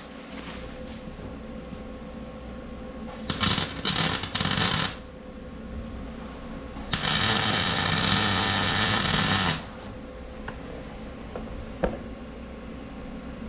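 Electric welding arc crackling in two short welds. The first, about three seconds in, is broken and stuttering; the second, near seven seconds in, is steadier and lasts nearly three seconds. A single sharp click comes near the end.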